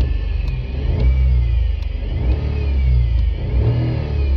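Renault Kwid's three-cylinder engine revved up and down a few times with the clutch pedal held down, a whine rising and falling with engine speed over the engine hum: the noise of a worn clutch release (throw-out) bearing, which grows louder when the engine is revved.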